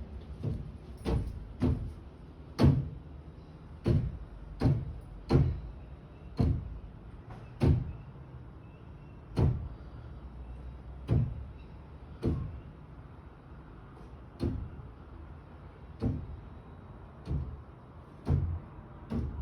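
Repeated heavy thuds and knocks from the flat upstairs, heard through the ceiling, about one a second at an uneven pace, with most of the weight in the low end.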